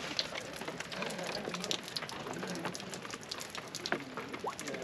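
Steady rain falling, with many individual drops striking hard surfaces close by as sharp ticks.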